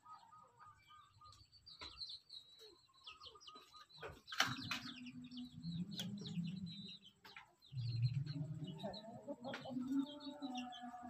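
Chicks peeping in many short, high chirps while foraging, with a mother hen's low, drawn-out calls coming in about four seconds in and again around eight seconds.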